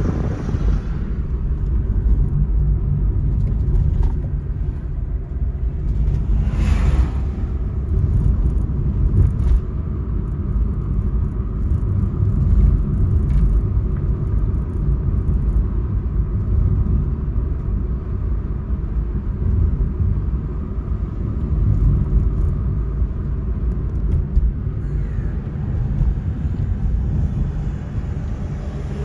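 Steady low rumble of a car driving along a road, heard from inside the moving car, with a brief whoosh about seven seconds in.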